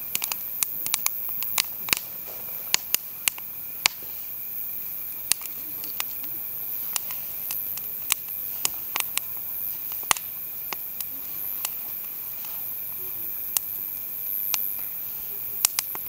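Burning birch logs crackling, with sharp irregular pops, at times several a second; the wood and charcoal were damp.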